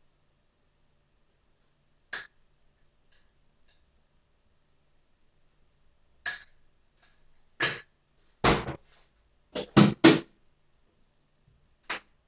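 Kitchen things being handled at a counter while making coffee: scattered short knocks and clatters, loudest in a quick run of hits about eight to ten seconds in.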